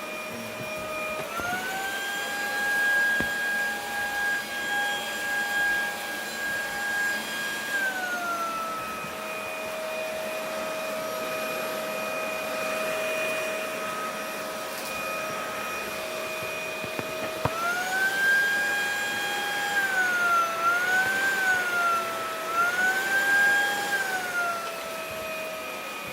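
Cordless stick vacuum cleaner's motor running with a steady whine. The pitch steps up about a second in and drops back at about eight seconds. It rises again at about seventeen seconds, dips twice and rises once more, then settles lower near the end.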